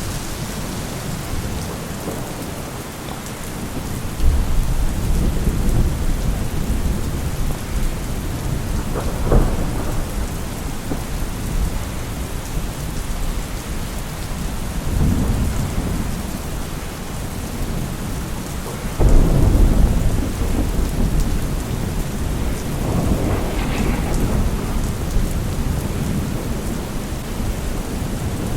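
Rain-and-thunderstorm ambience: steady rain with several low rolls of thunder, the loudest starting about four seconds in and again about nineteen seconds in.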